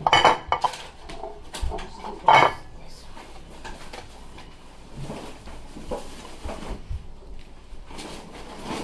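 Clatter of a glass mixing bowl, glass baking dish and rubber spatula as cornbread batter is scraped and tipped out: two loud knocks, one just after the start and one about two seconds in, then softer taps and scraping.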